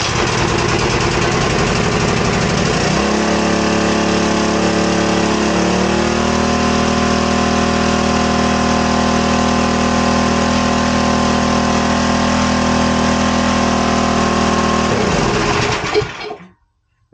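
Small single-cylinder Briggs & Stratton engine on a log splitter, catching and running. Its speed steps up twice in the first few seconds, then holds high and steady until it is shut off near the end. It is running too fast, which the owner puts down to the governor and carburetor linkage.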